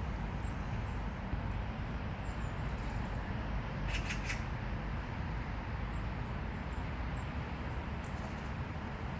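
Steady outdoor background noise, mainly a low rumble, with a few faint high chirps and a brief cluster of clicks about four seconds in.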